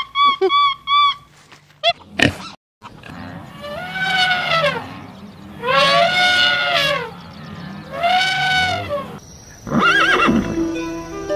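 A run of animal calls: about six quick, short yelps at the start, then three long calls that rise and fall in pitch, each about a second. Near the end a horse whinnies over background music.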